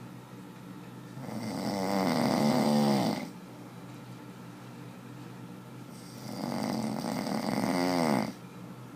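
A person snoring: two long snores about five seconds apart, each growing louder over about two seconds and then stopping sharply.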